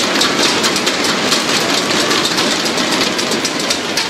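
Arena crowd noise at a badminton match: a steady loud din of cheering with dense clapping and clacks throughout, during a rally.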